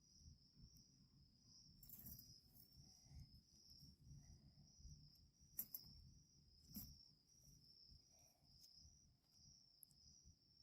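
Crickets chirping faintly in a steady, even pulsing rhythm, with three soft clicks or knocks scattered through.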